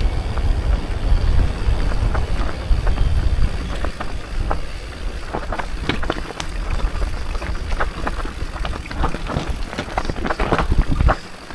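Mountain bike riding fast down a rough dirt singletrack, heard from a handlebar-mounted camera. A heavy wind rumble on the microphone fills the first few seconds, then many sharp clicks and knocks as the bike clatters over the bumpy ground, until it goes quieter just before the end.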